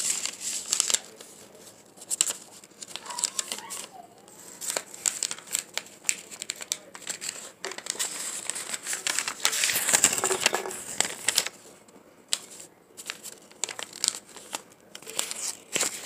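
A sheet of lined notebook paper being folded and creased by hand, crinkling and rustling unevenly, busiest about ten seconds in.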